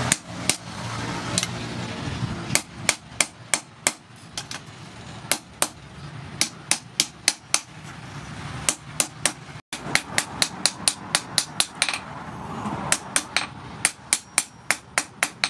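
Hand hammer striking red-hot rebar steel on a post anvil, forging the jaw of a pair of tongs: sharp metallic blows in quick runs of about three or four a second, with short pauses between runs.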